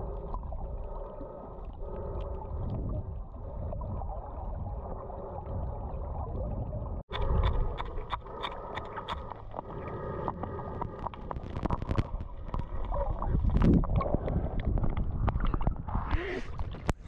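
Muffled underwater sound through a camera housing: water sloshing and bubbling with nothing above the low and middle pitches. About seven seconds in it cuts out for an instant, then a fuller sound with many sharp clicks and scrapes follows as marine growth is scraped off a sailboat's hull below the waterline.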